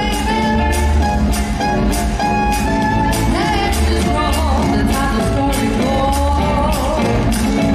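Quickstep ballroom dance music playing, with a sung vocal over a steady beat.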